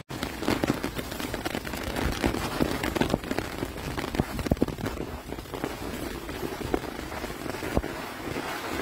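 Rustling and irregular crackling and snapping as macaques forage on dry leaf litter, handling and breaking open pea pods.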